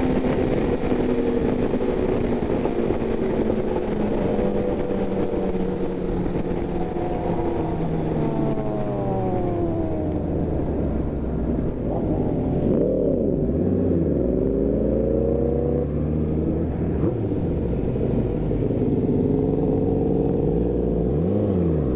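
Yamaha FZ1 sportbike's inline-four engine running at road speed with wind rush. The engine note falls as the bike slows about a third of the way in, then rises and dips a few times with the throttle.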